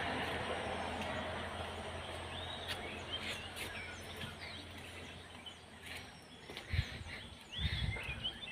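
Birds chirping on and off over a steady low background noise that slowly fades. A few low thumps come near the end.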